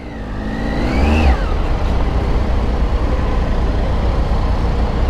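Motorcycle engine running slowly with a steady low rumble as the bike is moved into a parking spot. In the first second and a half a short pitched tone rises and then falls away.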